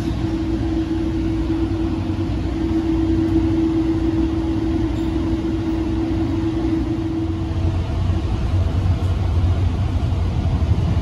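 Steady rumble and hum heard inside a Tri-Rail commuter train coach as the train rolls past a station and gathers speed. A steady hum tone fades out about three-quarters of the way through, while the deeper running rumble grows.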